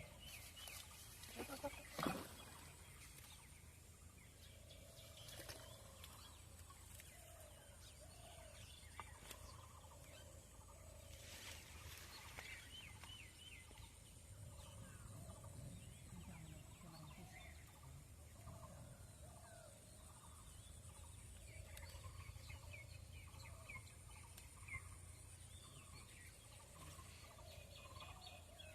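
Faint outdoor chorus of short animal calls repeating over and over, with a steady high-pitched insect drone beneath; a sharp knock sounds about two seconds in.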